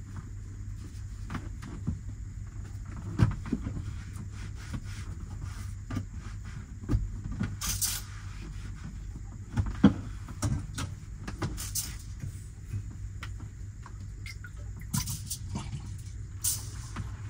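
Kitchen handling in a campervan: scattered clinks and knocks of a stainless steel pot and utensils on the counter, with a few short rustles, over a steady low hum.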